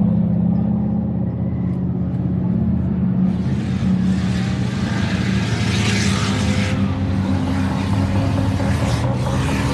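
Car engine running with a steady low note, joined about three seconds in by a loud rushing hiss that cuts in and out abruptly, like edited clips of the car under way.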